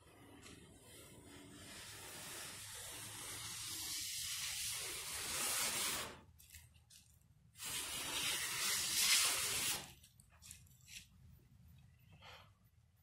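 Aerosol spray paint can spraying in long hisses: a first spray that builds up for about six seconds and cuts off sharply, a couple of short puffs, then a second spray of about two seconds, followed by a few short bursts.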